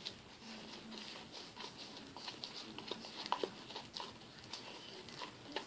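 Homemade glue-and-borax slime being stirred and worked, giving irregular wet, sticky clicks and squelches.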